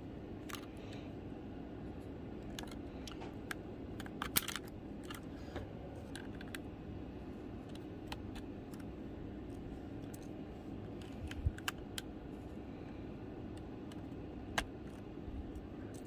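Scattered small plastic clicks and snaps as Keychron low-profile optical red switches are pried out of the Keychron K3's hot-swap sockets with a switch puller, over a steady low hum. The sharpest snaps come about four seconds in and again about eleven seconds in.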